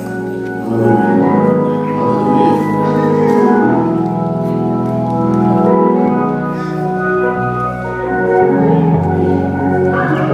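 Organ playing held chords that change every second or two over a low bass line.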